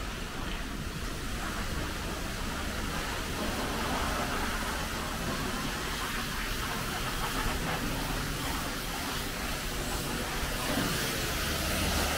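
High-pressure washer wands spraying water onto cars, a steady hiss with a low hum underneath.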